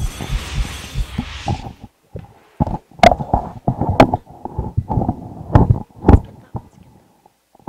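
A whooshing transition sound effect for about a second and a half, then microphone handling noise: a string of bumps, thuds and sharp knocks as a handheld microphone is pulled from its stand and gripped. The loudest knocks come about three, four and six seconds in.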